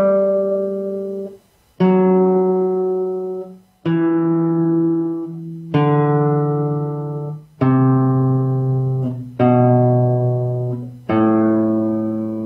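Classical guitar playing the G major scale slowly downward, one plucked note at a time. There are seven notes, roughly two seconds apart, each left to ring and fade, each a step lower in pitch than the last.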